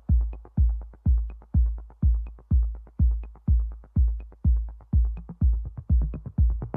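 Electronic background music led by a steady, deep kick drum, about two beats a second, with faint light ticks above it.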